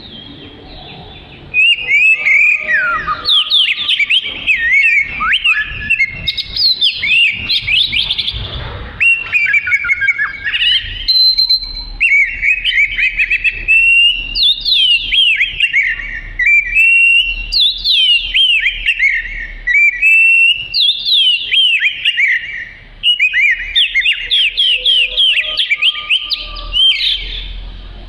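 Oriental magpie-robin singing loudly in full song: repeated phrases of fast, rising and falling whistled notes, starting about a second and a half in, with a brief break shortly before the end.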